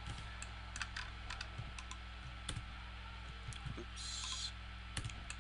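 Faint, scattered clicks of a computer keyboard and mouse being worked, with a short hiss about four seconds in, over a steady low electrical hum.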